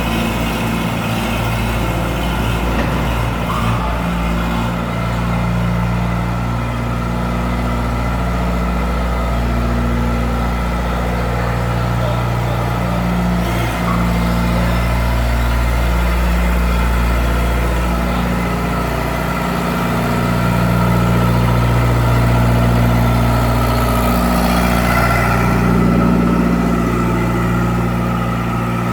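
Engine of heavy machinery running steadily, its pitch shifting slightly up and down now and then.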